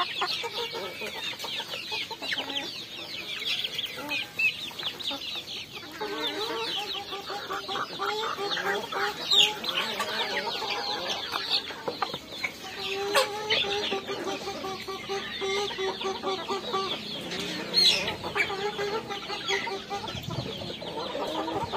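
A flock of chickens feeding, clucking and peeping continuously, with longer drawn-out calls joining in from about six seconds in.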